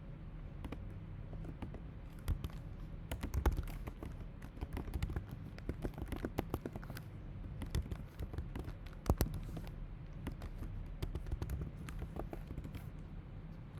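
Typing on a computer keyboard: irregular runs of key clicks with short pauses between, one key struck harder about nine seconds in, over a steady low hum.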